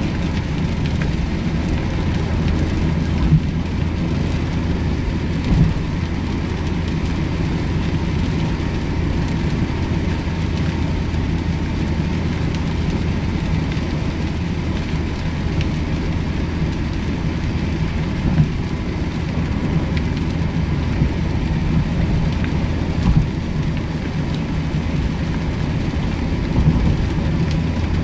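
Inside the cabin of a Mazda MX-5 Miata 1.8 driving on soaked roads in heavy rain: a steady low drone of the four-cylinder engine and tyres with the hiss of rain and spray on the wet road. A few brief knocks stand out.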